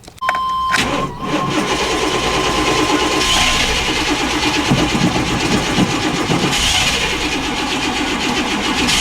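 Chevrolet 350 V8 being cranked over on the starter without catching: a no-start that the owner had put down to a weak ignition coil. A steady high tone sounds over the cranking for the first three seconds or so.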